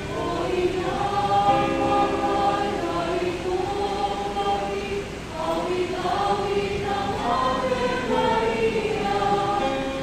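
A group of voices singing a slow hymn together, holding long notes phrase by phrase, with a short break between phrases about halfway through.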